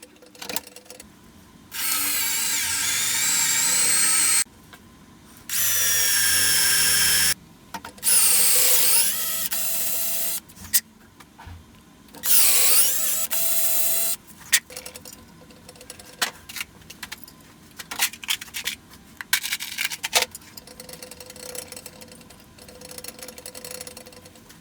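Power tool running in four bursts of a few seconds each, with a high whine that dips and rises in pitch during the third. Scattered clicks and knocks fill the gaps between the runs.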